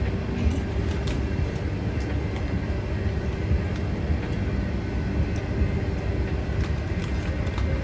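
Steady low mechanical rumble, like vehicle or machinery noise, with a faint hum and a few small clicks.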